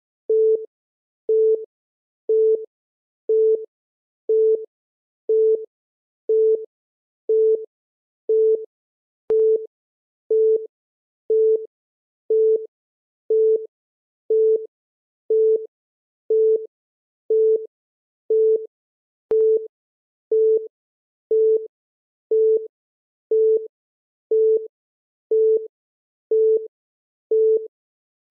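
Countdown timer beep: a short electronic beep at one steady mid pitch, once every second, marking each second ticked off. A faint click falls about every ten seconds.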